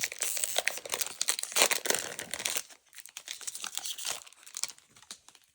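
Foil Magic: The Gathering booster pack wrapper crinkling and tearing as it is opened by hand: dense crackling for about two and a half seconds, then sparser rustles that die away.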